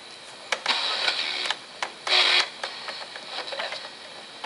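Soundesign 3620WAL clock radio's small speaker giving out noisy radio sound: two bursts of hiss, about a second in and again about two seconds in, over a faint steady high whine.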